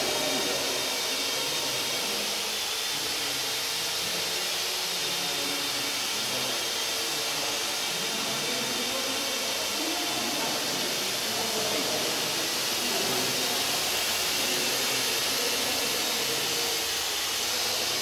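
Parrot AR.Drone quadcopter's four electric rotors whirring steadily in flight: an even, high hiss with a faint whine.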